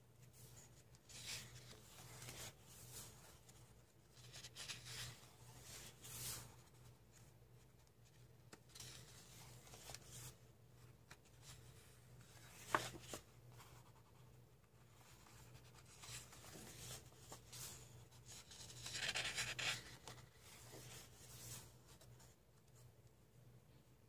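Faint rustling and sliding of thin watercolor-paper pages as a coloring book's fold-out pages are turned and flattened by hand, in soft intermittent swishes with one sharp tap about halfway through.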